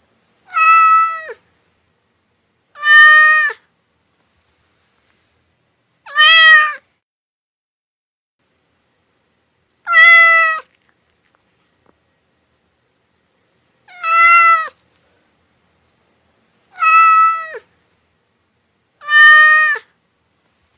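Domestic cat meowing: seven separate meows a few seconds apart, each under a second long and dropping in pitch at its end.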